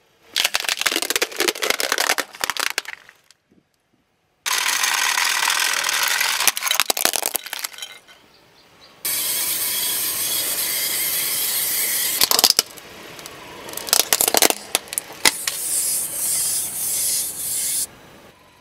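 A car tyre rolling slowly over asphalt and crushing plastic toys, crunching and crackling with sharp cracks. It comes in several separate stretches, each starting and stopping abruptly.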